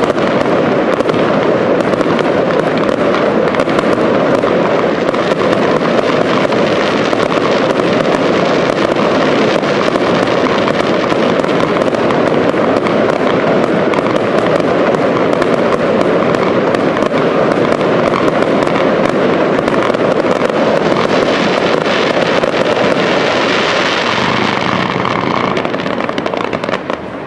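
Fireworks display: a dense, continuous crackle of many rapid small reports from bursting shells, easing off near the end.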